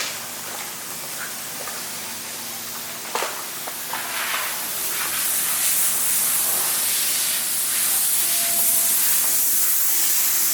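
A compressed-air tool hissing steadily. The hiss grows louder about four seconds in, with a sharp click just before.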